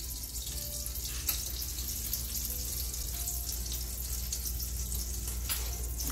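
Butter sizzling on the hot plates of a waffle iron as it is brushed on, a steady hiss with a couple of faint clicks.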